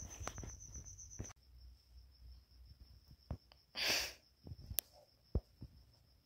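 Crickets chirping in a steady high trill, with a short loud breathy rush about four seconds in and a few light handling clicks.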